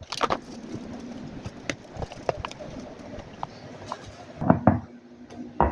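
Scattered light clicks and knocks of kitchen things being handled during food preparation, with a few louder knocks about four and a half seconds in and again near the end.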